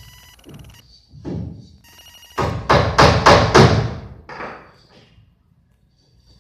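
A series of sharp knocks or strikes: a few lighter ones, then about five loud ones in quick succession in the middle that ring briefly, dying away before the end.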